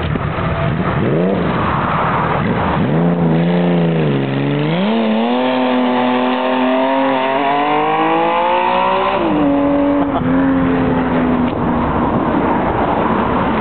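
Motorcycle engine accelerating. Its pitch dips about four seconds in, then climbs steadily for about four seconds before dropping sharply as it changes up. It holds a steady note briefly and then fades away.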